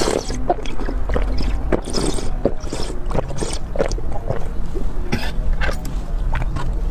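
Close-miked mouth sounds of sucking and slurping soft jelly from a small bird-shaped plastic container: irregular wet smacks, clicks and gulps.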